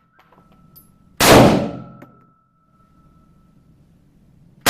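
Handgun shots fired in an indoor range: one about a second in and another at the very end, each dying away over about half a second, with a faint high ringing tone lingering after each.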